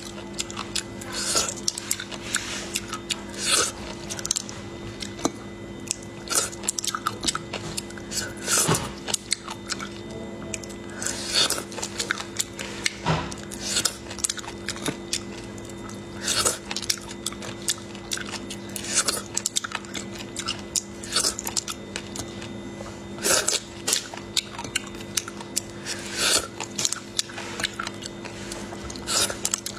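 Close-up eating of small boiled sea snails: short, sharp mouth sounds every second or two as the meat is sucked from the shells and chewed. A steady low hum runs beneath.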